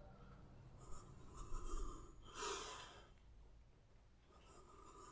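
Faint breathing during a side-lying leg-lift exercise, with one louder, short exhale about halfway through.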